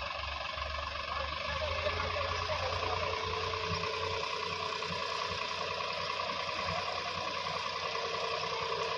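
Sonalika DI 750 tractor's diesel engine running steadily, with a low hum and a steady whine over it.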